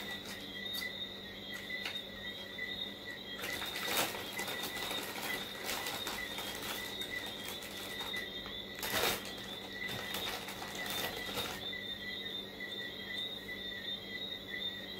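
Dry Jamaican water crackers being chewed: a few short crunches, the loudest about 4 and 9 seconds in, over a steady high-pitched whine.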